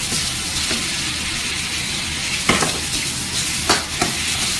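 Stir-fried noodles, vegetables and prawns sizzling in a hot wok with a steady hiss as they are tossed, with a few sharp scrapes of a metal ladle against the wok in the second half.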